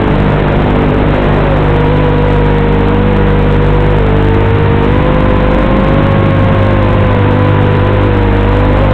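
Eachine Racer 250 Pro quadcopter's brushless motors and propellers whining in flight under a steady hiss. The whine's pitch drifts gently up and down as the throttle changes.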